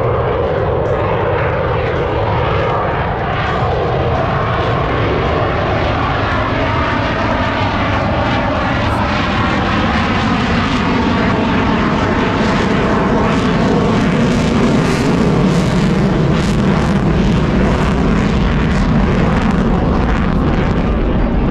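Aircraft engine noise, loud and continuous, with a slowly shifting pitch, growing a little louder in the second half.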